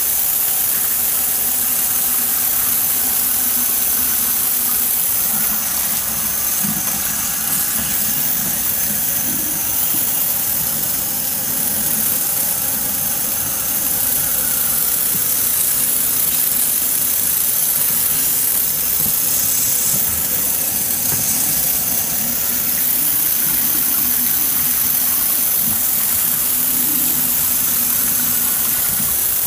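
Bathroom sink faucet running steadily, water splashing over hair and scalp as texturizer is rinsed out.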